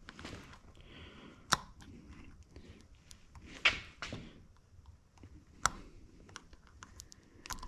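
Steel spiral-lock wrist pin retainer being worked into the groove of a piston's pin bore with a small screwdriver: light metallic scraping and ticking, with three sharper clicks spaced about two seconds apart.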